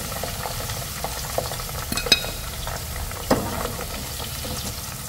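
Okra deep-frying in hot oil, the oil sizzling steadily with many small pops. A wire spider strainer clicks sharply against the pan about two seconds in and again about a second later.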